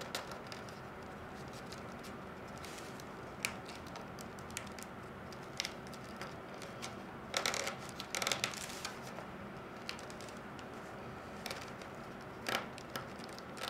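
Flat reed lashing rustling and scraping against a reed basket rim as it is worked under the rim and pulled tight. It comes as a few short scratchy sounds over a steady background hiss, bunched together about halfway through.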